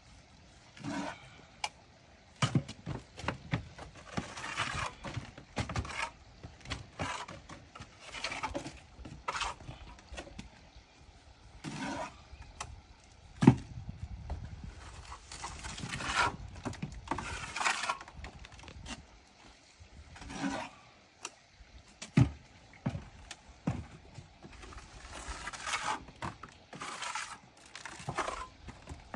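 Irregular scraping and knocking from stack-stone veneer work as stones and mortar are handled, with one sharp, loud knock about thirteen seconds in.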